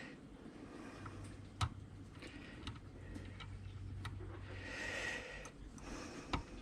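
Faint, scattered clicks of a tubular lock pick working the pins of a 7-pin tubular lock, with one sharper click about one and a half seconds in.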